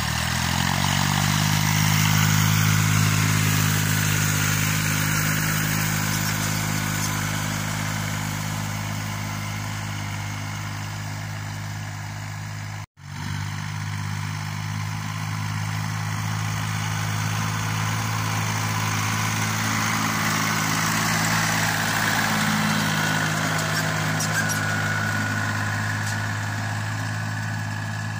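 Mini tractor's diesel engine running steadily under load while it pulls a single-furrow plough through unbroken sod. The sound breaks off for an instant about halfway through, then the engine carries on.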